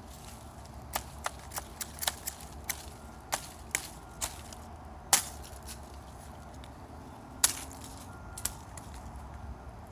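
A Ganzo G724M folding knife being batoned into a piece of wood, a baton knocking on the blade's spine. About a dozen sharp, irregularly spaced knocks are heard, the loudest about halfway through.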